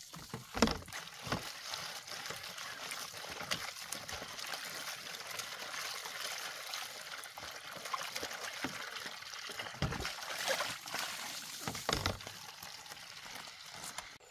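Water trickling steadily from a bamboo pipe spout into a plastic basin, with splashing as hands wash in the water. A few dull knocks and splashes stand out, the loudest about half a second in, others around ten and twelve seconds in.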